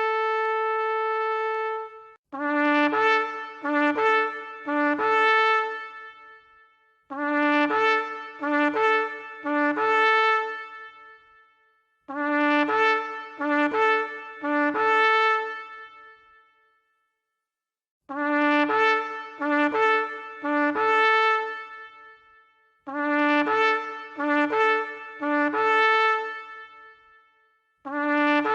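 Shofar (ram's horn) blowing: a long held note breaks off about two seconds in, then come six groups of short blasts, each group stepping back and forth between a lower and a higher note, with brief pauses between the groups.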